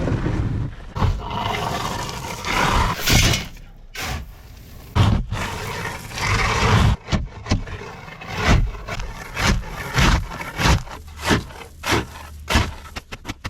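Gravel being worked during pool backfill: rough scraping and crunching, then a run of short sharp knocks about two a second through the second half.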